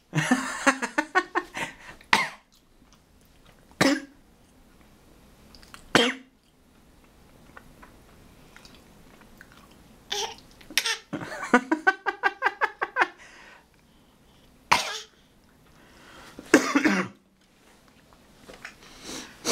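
A baby's put-on cough: short coughs, some single and some in quick runs of several, with pauses of a few seconds between them. A pretend 'sickly' cough, the baby acting sick.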